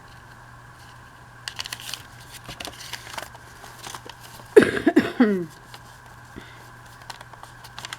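Paper rustling and crinkling as cut scrap pieces are handled, over a steady low hum. About halfway through comes a brief, louder voice-like sound that falls in pitch.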